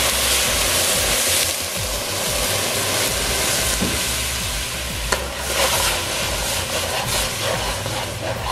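Water poured into a hot pot of oil-fried curry paste hisses and sizzles loudly, loudest in the first second or so, as the paste starts to stick. From about five seconds in, a metal spoon stirs and scrapes against the pot while the sizzling goes on.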